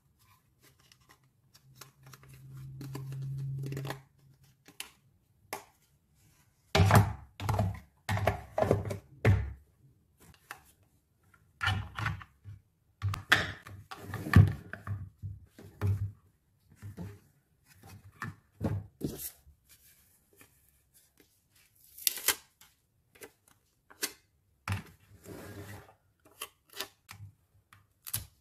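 Hard plastic toy-kitchen parts being handled: irregular clicks, knocks and scrapes as the pieces are fitted together and pulled apart, with a low hum for about two seconds near the start.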